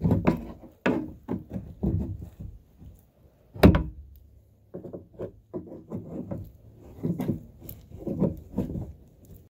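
A screwdriver and a gloved hand prying and pushing a cracked, pushed-in ABS plastic black tank back into shape: irregular knocks and rubs on the plastic, with one sharp, loud knock a little under four seconds in.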